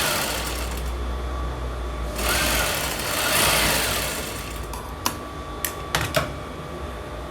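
Sewing machine stitching the lining piece on, running in two louder spurts with a steady low hum beneath, then a few sharp clicks in the last couple of seconds.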